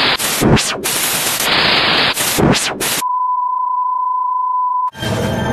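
Loud TV-style static hiss with a few quick glitchy sweeps. It cuts off about three seconds in to a steady 1 kHz test-tone beep held for about two seconds. Near the end a harsh, distorted glitch sound breaks in.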